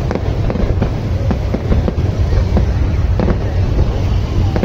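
Aerial fireworks going off in quick succession: a dense run of sharp bangs and crackles over a continuous low rumble.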